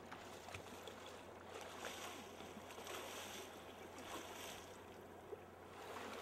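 Faint splashing and sloshing of river water in several short surges, as a hooked white sturgeon thrashes at the surface and a man wades beside it.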